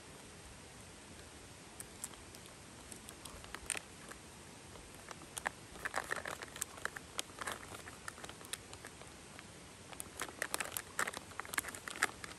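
Irregular crinkling and rustling with scattered light clicks, busiest about six seconds in and again near the end.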